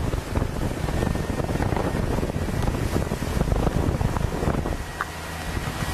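Strong wind in 25–30 knot gusts buffeting the microphone over the rush and splash of a motorboat's hull running through choppy water. A steady low engine hum comes through near the end.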